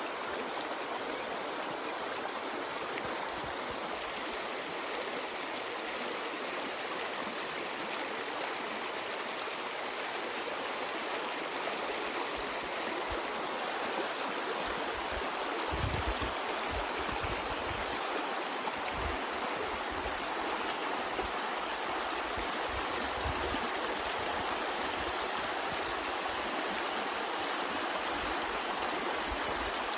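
Shallow river running low and rushing over rocks, pebbles and stones: a steady rush of water, with low rumbles from about halfway through.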